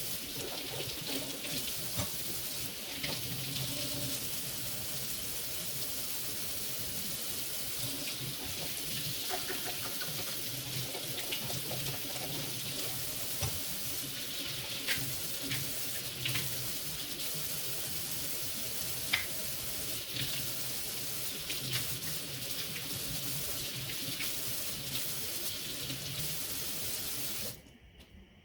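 Kitchen tap running steadily into a sink, with scattered light clinks, then shut off abruptly near the end.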